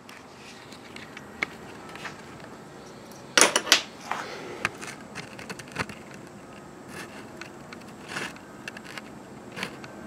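Handling noise from a camera being carried and set down: scattered clicks and knocks, with a louder clatter of several knocks about three and a half seconds in.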